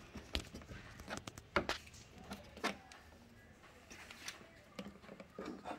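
A red plastic trim removal tool prying at the plastic daytime running light housing of a Tata Harrier, working it loose from its bumper clips: a few sharp plastic clicks and taps, the loudest about a second and a half in.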